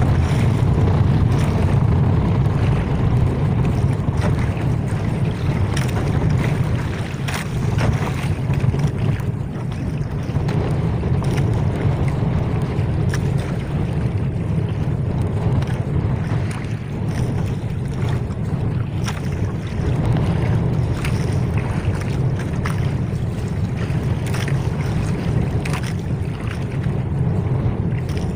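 Small outrigger fishing boat's engine running steadily at low speed, with wind buffeting the microphone and water rushing past the hull and outrigger.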